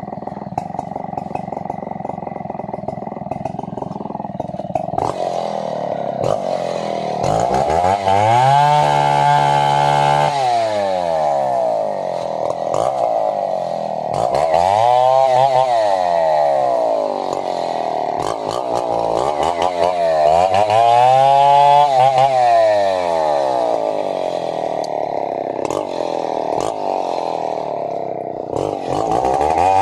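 Two-stroke chainsaw engine idling, then revving up to high speed and dropping back four times, a few seconds apart.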